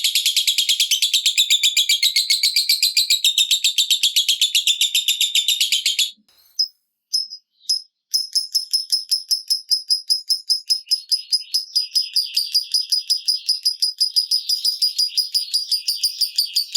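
Lovebird giving a long, rapid chattering trill, ngekek in its fast 'typing' style, with many high notes a second. It breaks off about six seconds in, gives a few single notes, then starts another long trill about two seconds later.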